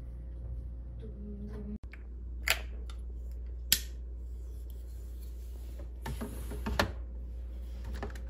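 Plastic clicks and knocks from handling a capsule coffee machine's hinged lid: two sharp single clicks, then a cluster of knocks and rattles toward the end as the lid is worked by hand, over a steady low hum.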